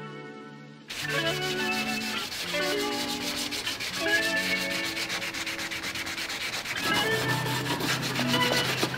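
Red abrasive scuff pad rubbed rapidly back and forth by hand over the painted metal door jamb and pillar of a Subaru STI body, scuffing the paint to prep it for painting. The scrubbing starts about a second in.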